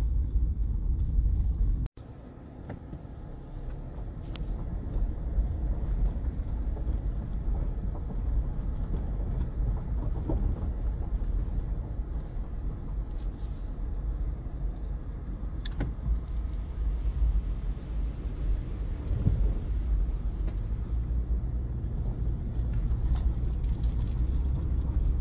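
Cabin noise of a 2009 Toyota 4Runner V6 driving along a trail: a steady low rumble of engine and road, heard from inside the car, with a sudden brief dip about two seconds in.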